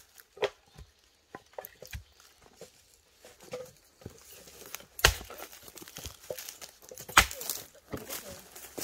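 An axe splitting firewood: a few light wooden knocks as pieces are handled, then two loud sharp chops about two seconds apart in the second half.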